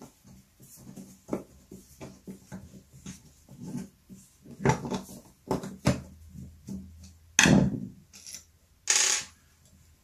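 Handling noises from taking apart a cordless angle grinder's gear head: many small clicks and knocks of metal parts, with two louder scraping sounds in the second half.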